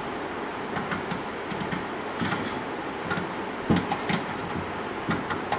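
Rotary switch of a decade resistance box clicking through its steps as the knob is turned: about ten sharp, irregular clicks over a steady background hiss.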